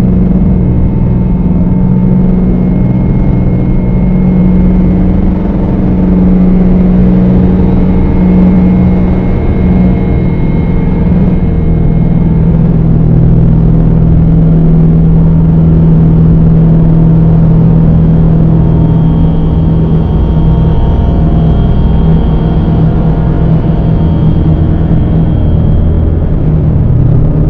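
Dark ambient drone music: a loud, dense low drone with a deep held note that steps down slightly about eleven seconds in, and faint high held tones above it.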